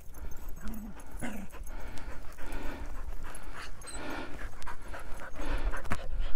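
Heavy panting breaths close to the microphone, a breathy puff every half second or so, with a few sharp steps on loose rock. The panting may be the dogs' or the hiker's own after the steep descent.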